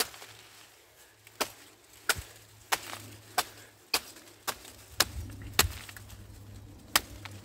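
A machete chopping a felled plantain trunk, about eleven sharp blows roughly half a second apart, with a longer pause near the end.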